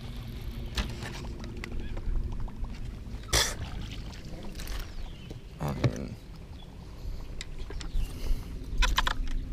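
Baitcasting rod and reel being handled as a small bass is reeled up and swung into the boat: scattered clicks and knocks over a steady low rumble of wind on the microphone.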